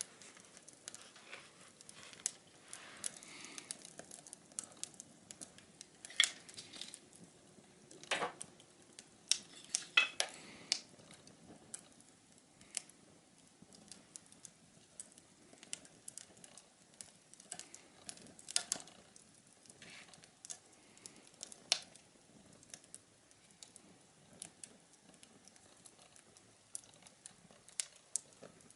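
Small wood fire burning in a mini can stove, giving irregular crackles and sharp pops over a faint hiss, with a few louder snaps scattered through.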